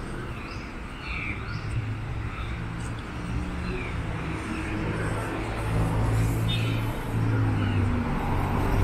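Street traffic: the low hum of a motor vehicle's engine that grows louder over the last few seconds, with short bird chirps scattered over it.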